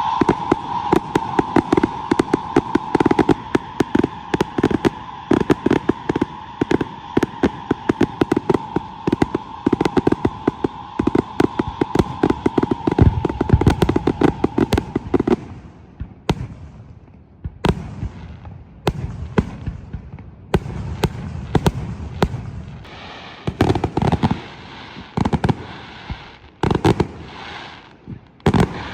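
Fireworks display: a dense barrage of rapid bangs over a steady whistling tone for about fifteen seconds. The barrage then thins out to scattered booms and crackling bursts with short gaps between them.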